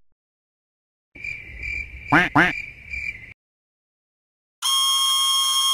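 Cartoon sound effects: a comic squawk of about two seconds, a steady high tone broken by two quick up-and-down warbles, then after a pause a steady buzzing tone lasting about a second and a half.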